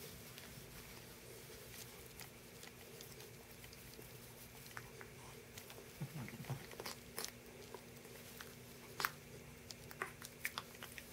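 Faint scuffling of a black cat play-biting and pawing at a hand on carpet: scattered soft clicks and rustles that come more often in the second half, with a sharper click about nine seconds in. A faint steady hum runs underneath.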